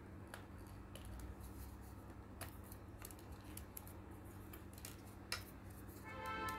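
Scattered light clicks and knocks of stiff cut-out kit pieces being handled and slotted together, with one sharper click about five seconds in and a short squeaky tone near the end.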